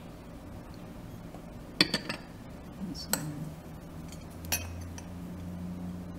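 Metal ladle and spoon clinking against ceramic serving bowls: a quick cluster of three clinks just under two seconds in, then single clinks about three and four and a half seconds in.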